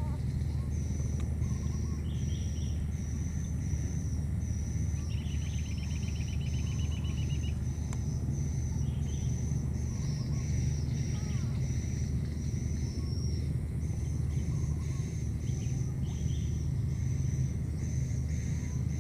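Outdoor ambience: a steady low rumble under a high, short chirp that repeats about every two-thirds of a second. A rapid trill joins about five seconds in and lasts two to three seconds.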